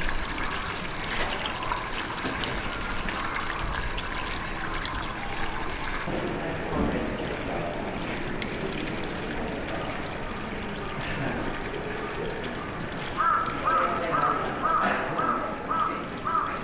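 Water running and trickling steadily, with faint visitor voices. Near the end comes a rapid run of short high chirps, about three a second.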